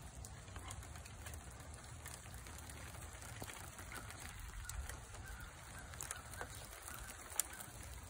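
Outdoor ambience on a wet, stormy day: a low steady rumble with scattered light ticks and drips, and faint honking bird calls around the middle.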